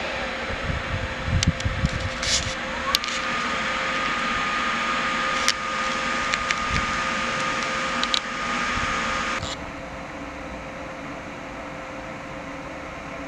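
Standing electric trains humming, with a fan-like whir. About three seconds in, a whine rises and then holds steady, with scattered clicks and knocks. About nine and a half seconds in, the sound drops to a quieter steady hum.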